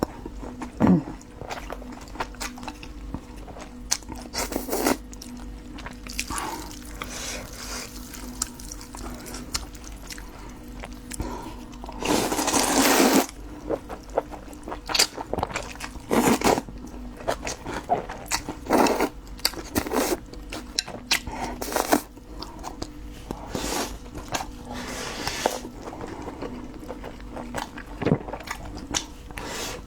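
Close-up eating sounds: chewing with many small wet clicks and smacks, and one louder noisy stretch about twelve seconds in that lasts about a second.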